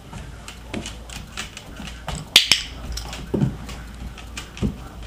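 A dog-training clicker sounds a sharp double click-clack about two and a half seconds in, the marker telling the English mastiff puppy she did the right thing. Around it are light ticks and taps of the puppy's claws and paws moving on a tile floor, with a few soft thumps.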